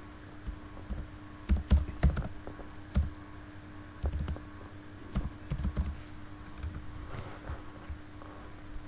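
Computer keyboard typing: scattered keystrokes in small clusters, thinning out after about six seconds, over a faint steady hum.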